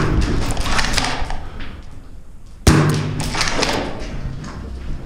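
Two sharp shots from a spring-powered bolt-action airsoft sniper rifle (SSG10A3), one right at the start and another nearly three seconds later, each followed by a trail of smaller clicks and knocks.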